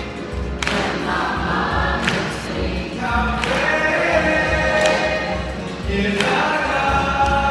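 A choir singing long held notes, with a few thumps among them.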